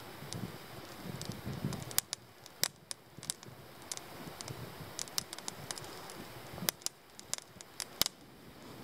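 Small wood campfire crackling, with scattered sharp pops from the burning firewood, a few of them louder.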